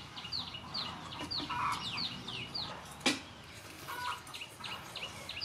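Chickens clucking among a steady run of short, high, falling chirps from small birds, several a second. One sharp click comes about three seconds in.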